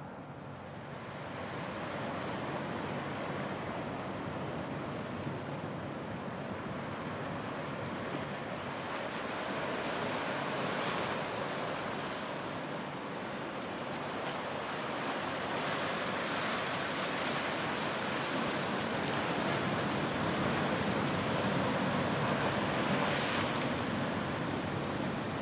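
Small ocean surf washing in over a sandy beach: a steady hiss of breaking waves that comes up over the first couple of seconds and swells louder twice, about halfway through and near the end.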